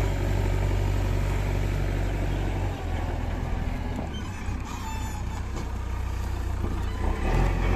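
JCB 3DX backhoe loader's diesel engine running under load as the backhoe arm digs and lifts a bucket of earth. The low engine hum eases a little about three seconds in and swells again briefly near the end.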